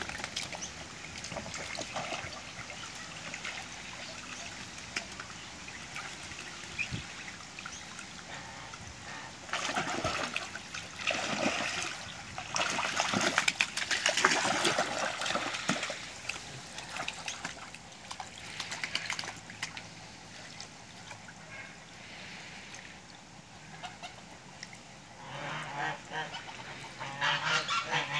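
Domestic ducks splashing and flapping in a small paddling pool, with bouts of splashing water about ten to sixteen seconds in. Near the end, ducks call repeatedly.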